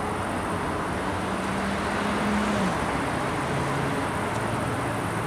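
SBB Re 6/6 electric locomotive, working in multiple with a second locomotive, hauling a freight train slowly toward the listener: steady running noise with a low electric hum that drops in pitch a little under three seconds in.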